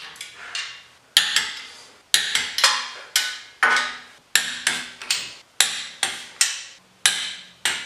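Ratchet wrench clicking in short strokes as the stainless nuts holding the wheel spindle and dust shield are run down and torqued to 33 ft-lb. The sharp metallic clicks, some in quick pairs, each ring briefly and come about two a second.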